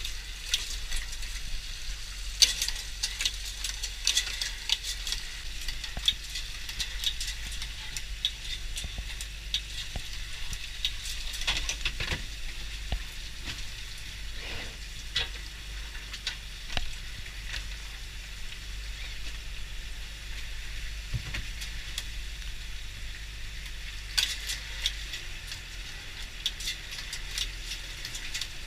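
Longline with its hooks and snoods running through a stainless-steel chute into a tub: a dense, irregular crackle of small clicks and ticks, with water dripping off the wet line. Under it runs the steady low drone of the boat's engine, which drops a little near the end.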